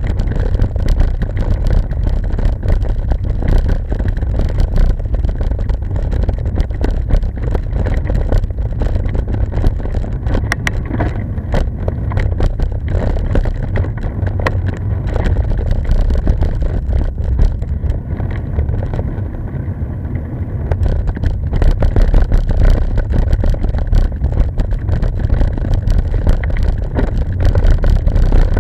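Wind buffeting the microphone of a moving handlebar camera: a loud, steady low rumble with rough crackle, mixed with tyre noise on coarse asphalt. It eases briefly about two-thirds of the way in.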